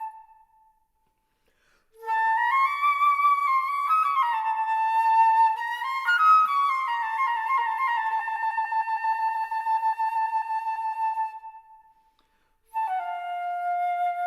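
Unaccompanied concert flute playing with vibrato. A held note dies away, then after a short silence a phrase of notes moving up and down ends in a long sustained note that fades out, and a new phrase begins near the end.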